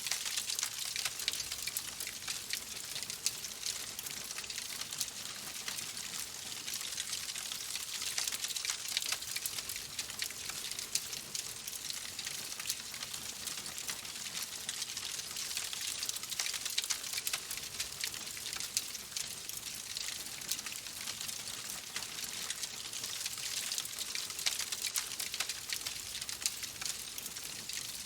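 Fire crackling in a fireplace: a dense, continuous run of small pops and snaps over a steady hiss.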